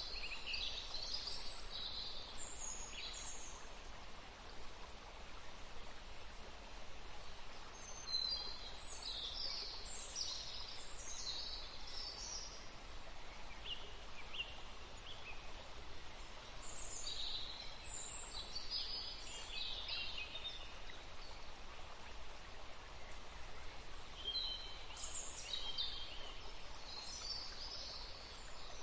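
Forest ambience: water running steadily, with birds singing in clusters of high, quick chirping phrases that come and go, at the start, about a third of the way in, past the middle and near the end.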